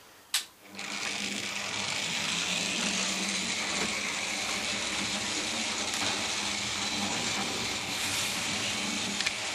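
OO gauge model tank locomotive's small electric motor whirring steadily, with its wheels and the coaches rolling on the track, starting after a sharp click about half a second in.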